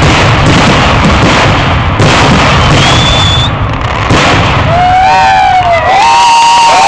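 Fireworks finale: a dense, continuous barrage of booms and crackle that thins out a little past the middle. Near the end, people's shouts and whoops rise over it.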